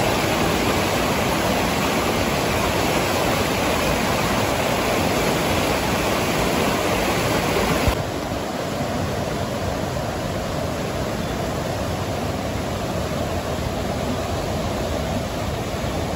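Waterfall rushing steadily as a dense, even roar of falling water. About halfway through it becomes slightly quieter and duller, then carries on unchanged.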